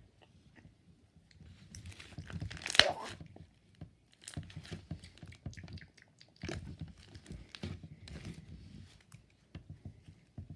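Slime being squeezed and poked by hand, making irregular crackling pops. The loudest burst comes about three seconds in.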